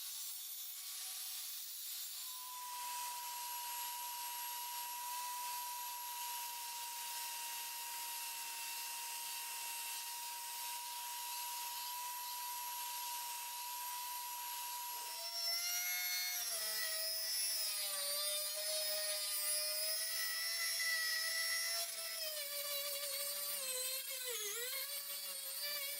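Belt sander running with a hiss as steel is sanded on the belt: a steady whine, then from about halfway a lower whine that wavers and dips.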